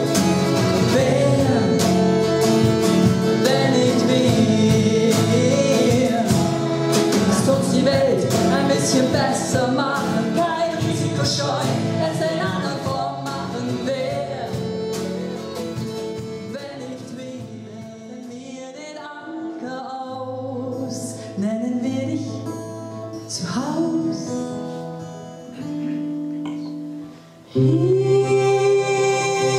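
A live folk band playing a passage on fiddle, acoustic guitar and drums. The music is full at first, then thins to sparse held notes. Near the end there is a brief drop, then loud, sustained singing voices come in together.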